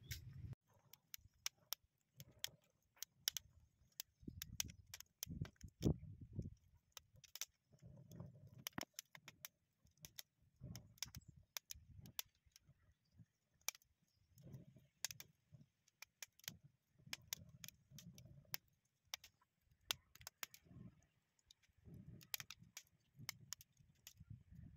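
Faint, irregular clicks and light metallic clinks from zinc battery scraps in a pot used as a crucible, over a fire being lit to burn them off.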